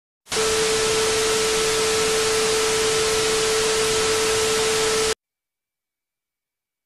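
Television static: a loud, even hiss of white noise with a steady mid-pitched tone running under it. It cuts off suddenly about five seconds in.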